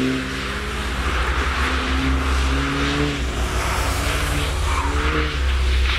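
Volkswagen Golf R's turbocharged 2.0 TSI four-cylinder engine heard from outside, its revs rising and falling several times as the car weaves through a slalom, with tyre hiss from the wet tarmac.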